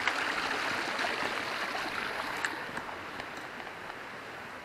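Running water of a stream, a steady rush that fades gradually, with a couple of faint clicks about halfway through.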